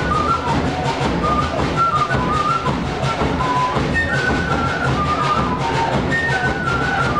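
Live Andean folk dance music from a band: a high melody line played over a steady drumbeat.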